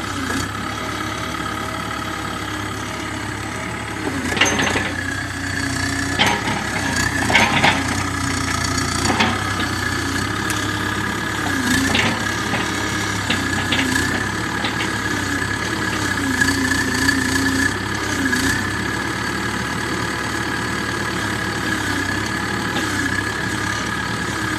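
Cat 305 mini excavator's diesel engine running steadily, its note dipping and recovering as the hydraulics are worked, over a steady high whine. Several sharp knocks come between about four and fourteen seconds in.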